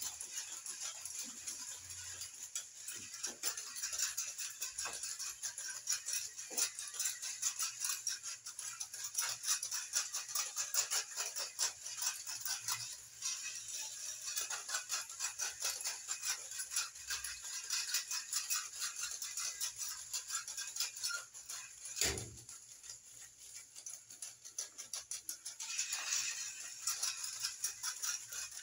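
Battery-powered walking toy horses clicking and rattling steadily as their motors and plastic legs step across a tiled floor, with one sharp knock about three quarters of the way through.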